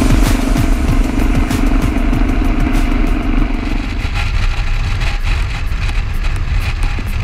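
BMW F650CS Scarver's single-cylinder engine running on the move, mixed with wind noise on the camera microphone; a steady hum in the engine sound drops away about four seconds in.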